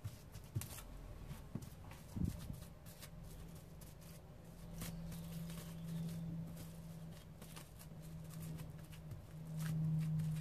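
Hands pressing and patting a sheet of minced meat flat on plastic cling film: faint rustling and soft, scattered taps. A low steady hum comes in about halfway through and is loudest near the end.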